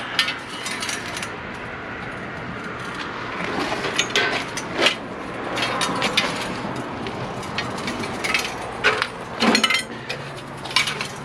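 Scrap metal being rummaged through and handled in a dumpster: irregular clanks, clinks and knocks over a steady background hum.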